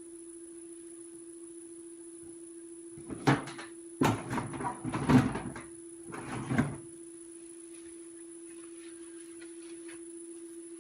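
Several knocks and clatters of objects being handled and set down, in three bursts a few seconds apart. Under them runs a steady hum with a faint high whine.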